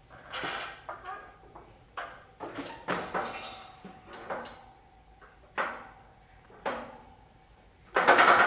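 Hanging grip holds on a ninja obstacle course knocking and clattering as an athlete swings hand to hand between them, a few separate knocks with gaps between, then a louder clatter about eight seconds in.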